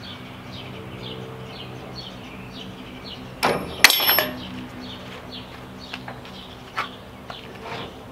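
Metal clinking and rattling from a trailer-mounted trimmer rack mount being tightened: one loud clatter a little before halfway, then a few lighter clicks near the end. A bird chirps repeatedly over a steady low hum.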